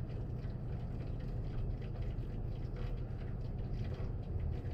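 Steady low background hum, with faint light scraping and handling noises from a wooden stick working JB Weld epoxy into a metal screen on a fan housing.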